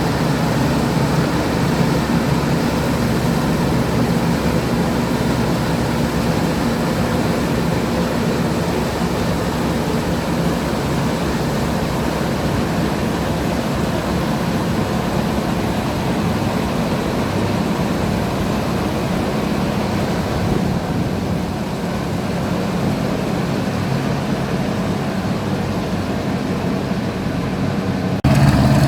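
A 1967 Massey Ferguson 410 combine harvester running steadily during wheat harvesting: a constant engine drone under a wash of machinery noise. The sound changes abruptly to a louder drone near the end.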